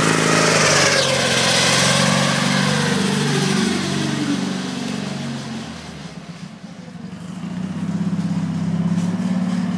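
1982 Wheel Horse C-195 garden tractor's engine running, with a whine that falls in pitch over the first few seconds; the engine sound drops quieter around six to seven seconds in, then picks up and runs steadily again.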